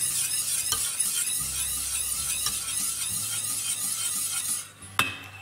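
Wire whisk stirring a thickening soy-milk béchamel in a stainless steel saucepan: a steady scraping swish that stops about four and a half seconds in, followed by one sharp metal clink of the whisk against the pan.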